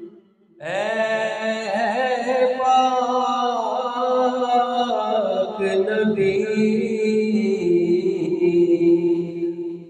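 A man singing an Urdu naat solo with no instruments, in long held notes that waver and bend in pitch. The voice comes in just under a second in, after a brief pause for breath.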